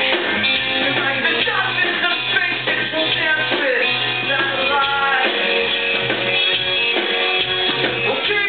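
Rock band playing live, with a sung vocal over electric guitars, bass and drums, recorded from the audience.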